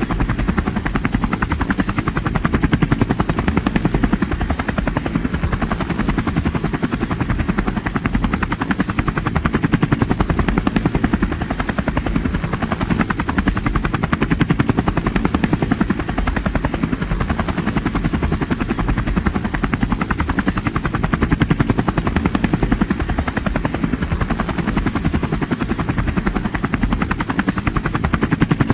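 Helicopter running steadily: a rapid, even beat of the rotor blades over engine noise, swelling slightly every few seconds.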